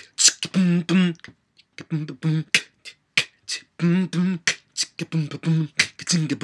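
Beatboxing: sharp mouth-percussion clicks and snaps mixed with short hummed bass notes in a quick rhythm. It thins out to scattered clicks for a couple of seconds in the middle, then turns dense again.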